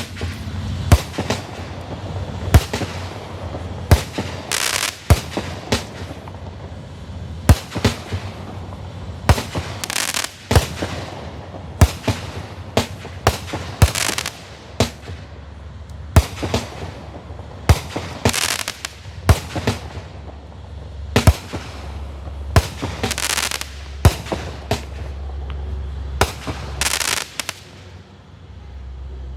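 Black Cat "Don't Tread on Me" consumer firework going off: a long run of sharp bangs, about one or two a second, with several longer, noisy bursts mixed in and a low rumble underneath. It stops shortly before the end.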